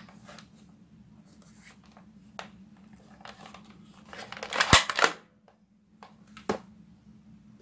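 Plastic Captain America toy dart blaster being handled, its plastic parts rattling and clicking, then a loud run of clicks with one sharp snap a little past halfway as it is primed and fired. One more single click comes about two seconds later.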